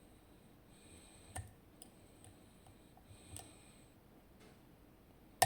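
Soft, scattered clicks and ticks of lock picks working the pins of a zIKON SK6 Sperrwelle Extra Code high-security lock, with one sharp, louder click right at the end.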